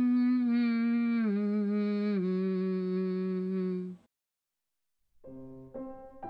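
A single voice humming a slow melody in long held notes, breaking off about four seconds in. After a second of silence, piano notes begin near the end.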